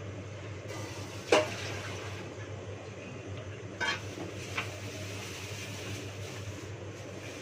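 Kitchenware being handled at a counter: one sharp clink about a second in, then two lighter knocks around four seconds in, over a steady low hum.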